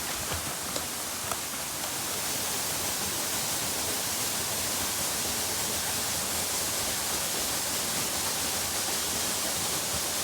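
Waterfall: a steady rush of falling water, rising a little about two seconds in and then holding even.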